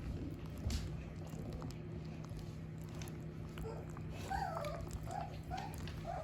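Several 17-day-old Shepsky puppies squeaking and whimpering in a run of short, high, wavering calls that start a little over halfway through, over a steady low hum.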